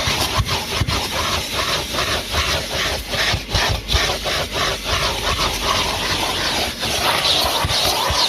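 Numatic Henry Plus HVR200P vacuum cleaner running, its nozzle rubbing and sucking over the car's interior. The suction noise rises and falls irregularly as the nozzle is worked back and forth, with soft knocks.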